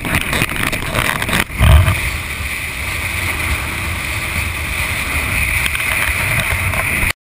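Motorcycle riding at highway speed, heard through a camera mounted on the bike: steady wind rush over the microphone with engine and road rumble beneath. There is a loud low buffet of wind just after a brief drop about one and a half seconds in, and the sound cuts off suddenly near the end.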